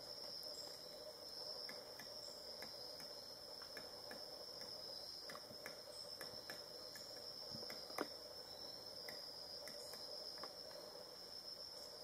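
Faint, steady high-pitched insect drone, with a lower steady hum beneath it. Scattered faint clicks, and one sharper click about eight seconds in.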